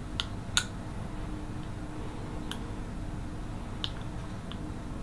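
About five small, sharp clicks scattered over several seconds, the loudest just over half a second in: fingernails picking at clear plastic dental aligners on the teeth, trying to unseat aligners that are stuck fast.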